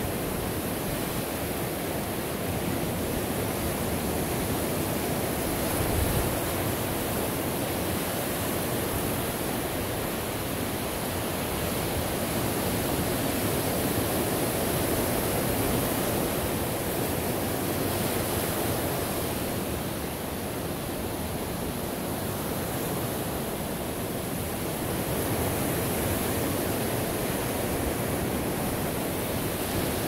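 Ocean surf washing continuously onto a shore: a steady rushing of breaking waves that swells and eases slowly over several seconds.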